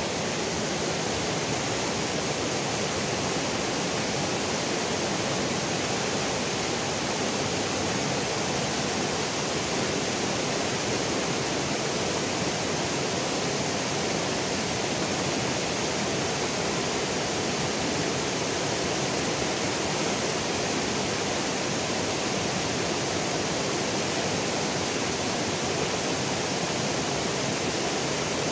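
Shallow, rocky river rushing through white-water rapids: a steady, unbroken wash of water.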